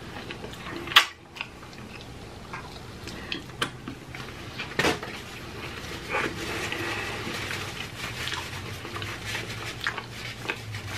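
Close-miked eating: chewing tacos, with scattered clicks, crackles and rustles from handling food and paper wrappers. A sharp crack stands out about a second in.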